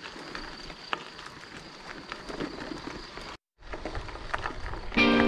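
Bicycle riding noise picked up by a handlebar-mounted camera: a steady rustle of tyres and wind with small rattling clicks and a faint, steady high tone. The sound cuts out completely for a moment about three and a half seconds in, and background music comes in just before the end.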